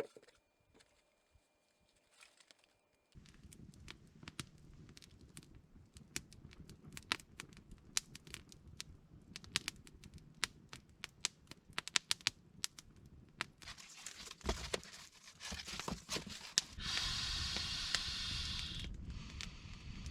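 Dense, irregular crackling and snapping over a low steady rumble, starting about three seconds in, with a louder burst of hiss near the end.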